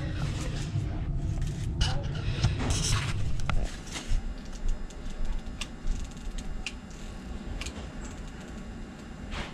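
Soft clicks, ticks and rustles of hands handling flowers and a small glue tube, with a low rumble for the first few seconds.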